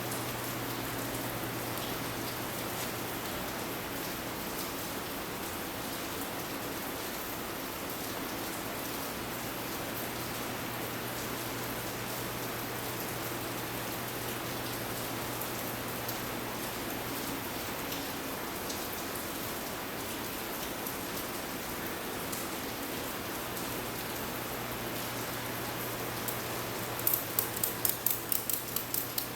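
Steady hissing background noise with a low hum. Near the end comes a quick run of sharp clicks, about four a second, which are the clicks of a ratchet strap being cranked tight.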